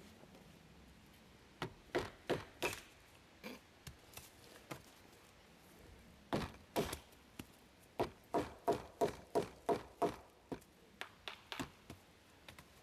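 Batoning: a wooden baton knocking on the spine of a bushcraft knife to drive the blade down through a short log round. The sharp knocks come in runs, the strongest being a quick series of about seven blows about two-thirds of the way through, with lighter taps near the end.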